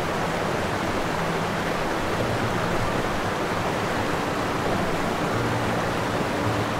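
A loud, steady hiss spread evenly from low to high pitches. It comes in just before and fades out just after, with faint low music tones beneath.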